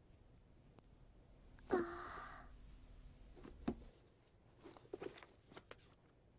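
A girl's short, breathy exhale of effort as a heavy book comes free of a shelf, about two seconds in. It is followed by a few faint clicks and rustles as the book is handled and opened.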